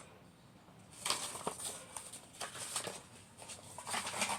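Faint handling sounds: a few light taps and soft rustles of kit pieces and packaging being moved, starting about a second in.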